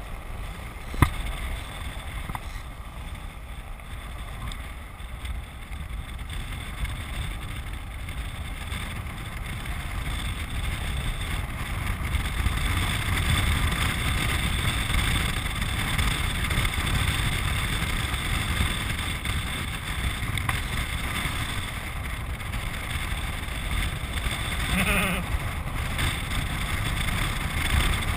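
A land yacht rolling across a hard dry lake bed under sail: a steady rush of wind buffeting the microphone along with wheel and rolling noise, growing louder from about ten seconds in. A single sharp click comes about a second in.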